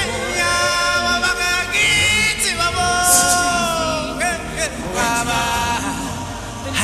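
Music: a song with singing voices holding long notes, one of them gliding slowly down in pitch about halfway through.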